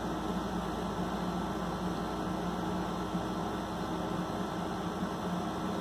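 Steady low electrical hum over a constant hiss: room tone with no separate events.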